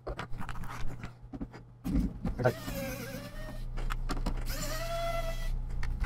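Small electric screwdriver motor whirring in two runs of about a second each, its pitch dipping and rising as it backs out the screws on the underside of the case, after a few light clicks and knocks of handling.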